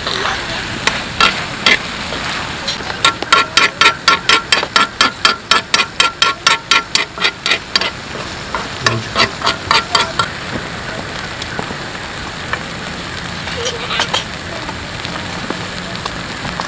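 Spicy stir-fry sizzling on a round griddle pan as stainless tongs and a spoon toss it, their metal clinking and scraping against the pan. The clinks come in a fast run of about five a second in the first half, then a few more later.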